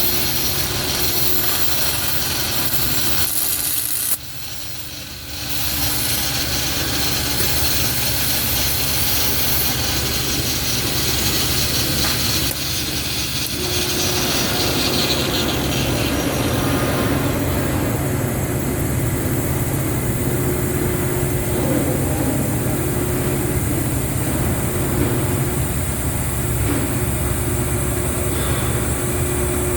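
Welding arc on a power-plant boiler tube, a steady crackling hiss over a low hum, breaking off briefly about four seconds in and then resuming; from about fifteen seconds the sound loses its higher hiss.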